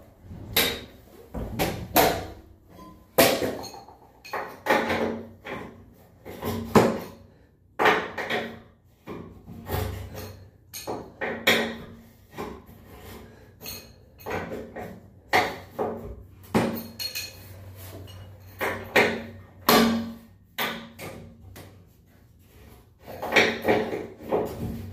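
Irregular knocks and metallic clinks of hand tools working on a glass door's pivot hinge hardware, about one or two a second, with a brief lull shortly before the end.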